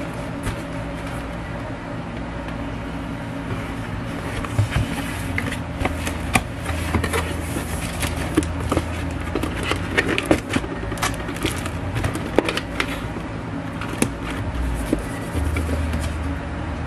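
Stiff cardboard cake boxes being folded and handled on a counter: scattered taps, creases and rustles of paperboard, over a steady low machine hum.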